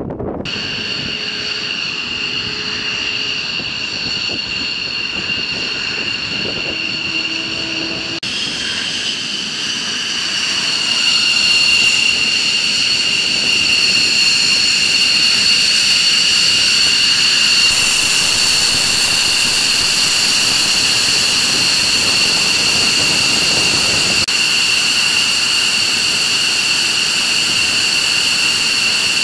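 F-15E Strike Eagle's jet engines running at low power on the ground: a steady high-pitched turbine whine over a rushing noise, growing louder about ten seconds in.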